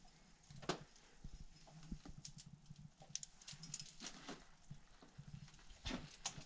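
Faint, irregular clicks and scuffs of climbing rope and gear being handled at the foot of a route, with a cluster of sharper taps in the middle.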